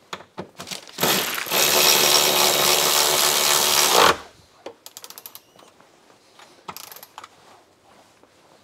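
Power tool running for about three seconds, driving a flanged nut down onto a suspension stud, with scattered light clicks before and after it.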